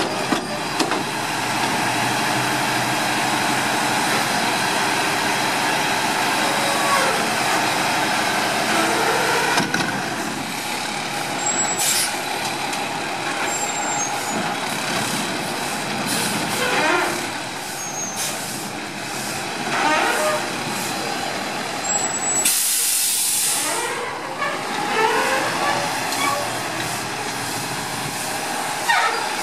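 New Way Mammoth front-loader garbage truck working a recycling pickup: its engine runs as the forks lift and dump a blue container over the cab, then the truck pulls ahead with its engine rising and falling. There is a short air hiss, and a loud, sharp air-brake release about two thirds of the way through.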